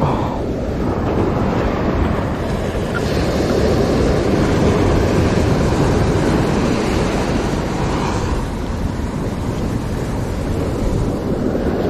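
Ocean surf washing up the beach in a steady rush, with wind buffeting the microphone.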